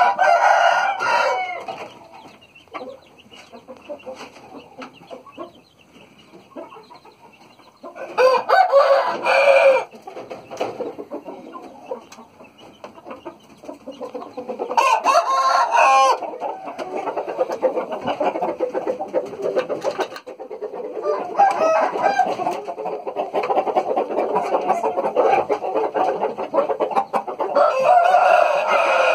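Young roosters crowing, four crows of about two seconds each spread through the stretch, with clucking and low calling from other birds in between.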